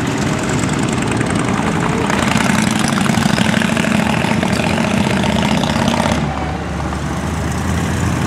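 Motorcycle engines running as bikes ride past one after another, louder from about two seconds in and dropping off suddenly about six seconds in.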